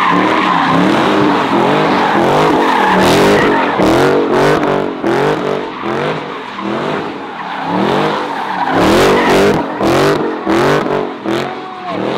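A car being slid (drifted): its engine revving up and down again and again, roughly once a second, with tires skidding and squealing.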